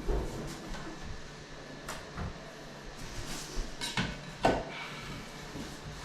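A few scattered knocks and scrapes, the clearest about two, four and four and a half seconds in, as a shower base is shifted and pressed into place.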